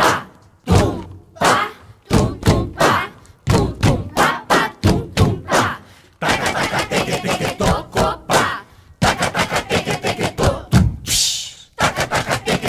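Body-percussion music: quick, rhythmic thumps and slaps with short sung or spoken vocal syllables, and a denser passage of voices in the middle.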